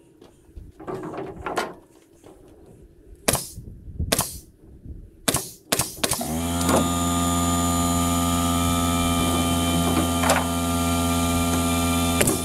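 A few sharp metal clanks and knocks, then about six seconds in a portable air compressor kicks on: its motor spins up quickly and settles into a steady loud hum.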